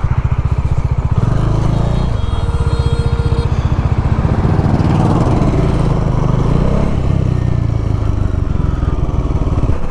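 Bajaj Dominar's single-cylinder engine running steadily under the rider, its pitch rising and falling a few times with the throttle.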